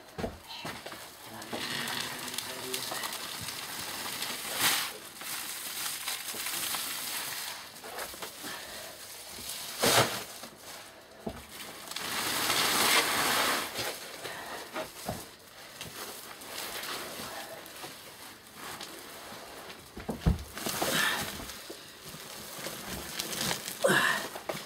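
Heavy sacks being pulled and shifted on a bench: irregular rustling and scraping of the sack cloth, broken by a few dull knocks, the loudest about ten seconds in.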